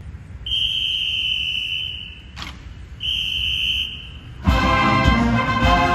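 Two long, steady high whistle blasts. About four and a half seconds in, a brass marching band suddenly strikes up loudly.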